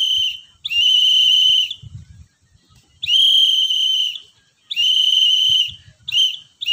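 Scout whistle blown in Morse code: a long blast, a pause, then two long blasts followed by two short ones, the last dash of Y and then the letter Z (dash-dash-dot-dot). Each blast is a steady high whistle tone.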